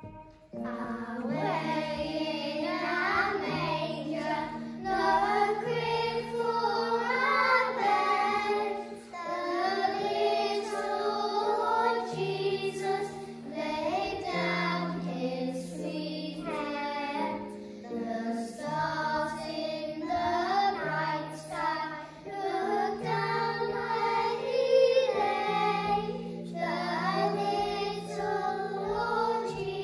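A small group of young children singing together, over instrumental accompaniment of held low notes.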